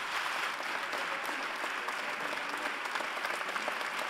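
Large audience applauding, a dense and steady sound of many hands clapping.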